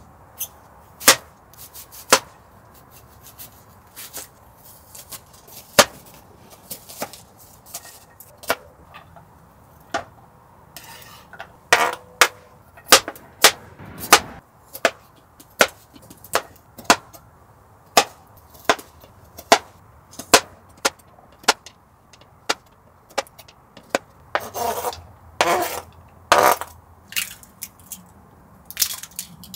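Chef's knife chopping a carrot on a cutting board: sharp, separate knocks of the blade hitting the board, mostly about a second apart, with a few longer, rougher cutting sounds near the end.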